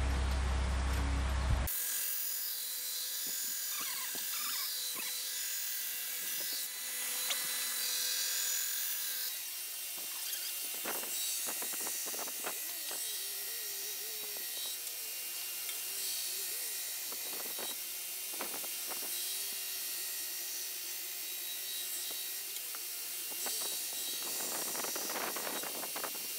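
Light metallic clicks and taps as a steel grinding jig is adjusted and clamped by hand on a metal table, over a steady hiss.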